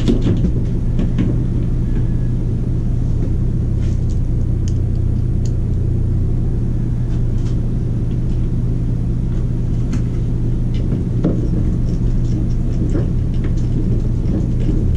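A steady low mechanical hum runs throughout, with a few light clicks and knocks from hand work on the roof vent's screen and screws.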